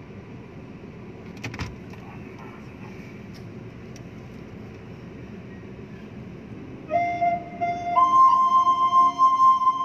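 Steady low car-cabin hum, then about seven seconds in a clear, flute-like melody begins: long held notes that step upward in pitch, the opening of a song.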